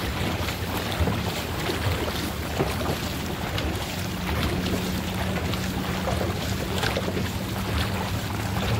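Dragon boat paddles dipping and pulling through the water, with splashing and water rushing along the hull, over a steady low rumble of wind on the microphone.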